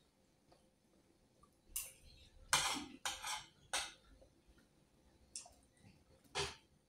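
Spoon and fork scraping and clinking against a plate while eating, in several short clatters through the middle and one more near the end.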